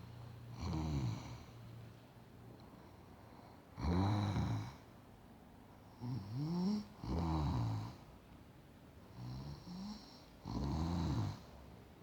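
A woman snoring in her sleep: loud pitched snoring breaths every two to three seconds, several of them in two parts.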